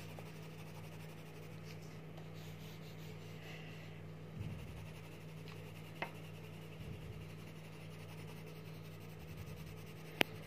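Coloured pencils scratching faintly on colouring-book paper as two hands colour, over a steady low hum. A small click comes about halfway through and a sharper one just before the end.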